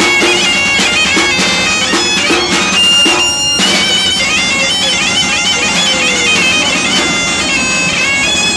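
Asturian gaita (bagpipe) playing a quick, ornamented melody over its steady drone. The melody breaks off briefly about three and a half seconds in, then carries on.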